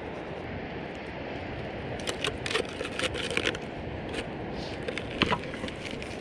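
Campfire crackling, with a cluster of sharp pops between about two and five and a half seconds in over a steady rushing background; the loudest pop comes a little after five seconds in.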